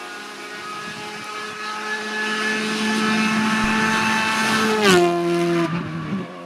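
Rally car engine held at steady high revs, growing louder as the car approaches, then dropping sharply in pitch as it passes close by about five seconds in.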